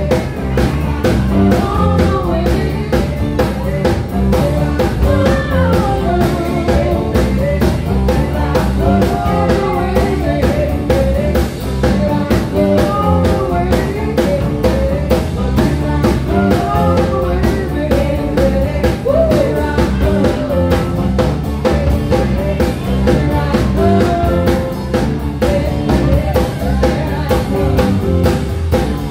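Live band playing: a woman singing a melodic line over electric guitars and a drum kit keeping a steady beat.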